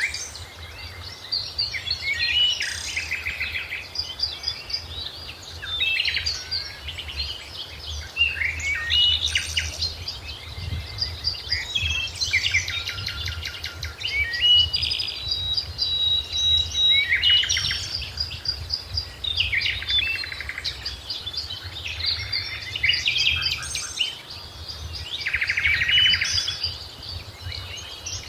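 Several songbirds singing and chirping together, with quick trills and whistled notes overlapping one another, over a steady low rumble.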